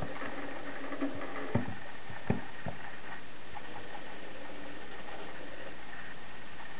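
Small electric motor of a model railway running with a steady hum and whine, with four sharp clicks in the first three seconds; the motor stops near the end.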